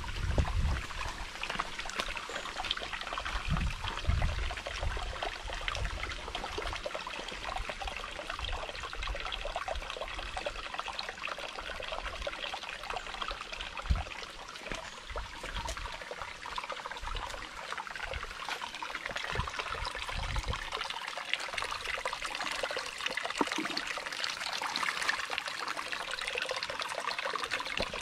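Shallow stream trickling and splashing over rocks and leaf litter in a steady hiss. Irregular low rumbles on the microphone come and go, strongest in the first few seconds.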